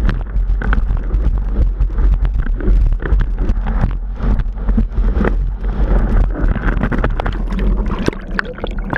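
Wind buffeting the action camera's microphone with a heavy steady rumble, over water rushing and spraying past a windsurf board and sail sailing at speed. Near the end the rig crashes into the water.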